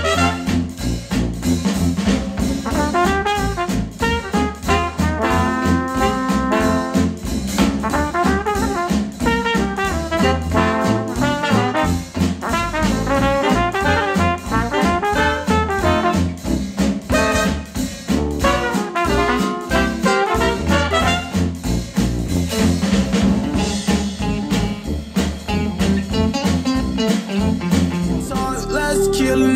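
Retro jazz music with trumpet and trombone, played back through KEF R3 bookshelf speakers. Near the end the jazz gives way to the opening of a hip hop/pop track.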